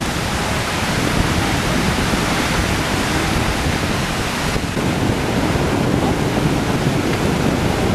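Steady rush of surf breaking on a sandy beach mixed with wind.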